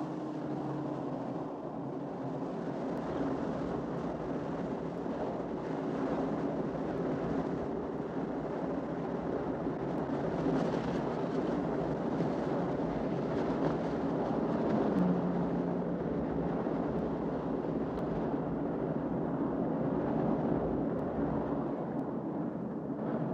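Open-top car driving at steady speed, its engine running evenly under a constant rush of wind.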